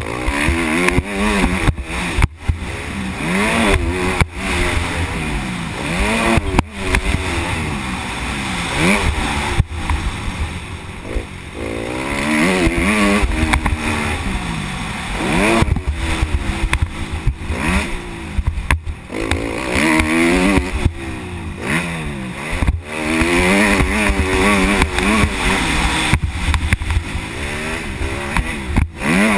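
Motocross bike engine recorded on board, revving up and falling back over and over as the throttle is opened and shut around the track. Heavy wind rumble on the microphone runs under it, with sharp knocks scattered throughout.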